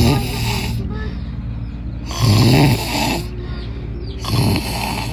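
A person snoring loudly: three rasping snores about two seconds apart, the longest in the middle.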